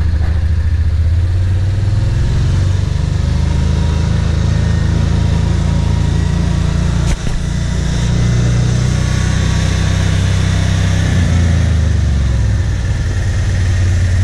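Side-by-side off-road vehicle's engine running steadily as it drives along a rough dirt road, with a brief dropout about seven seconds in.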